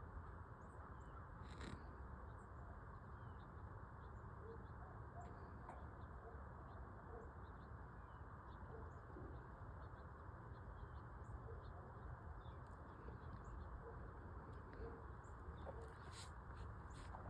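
Quiet outdoor ambience with a steady low hiss, faint scattered bird calls and a few soft clicks.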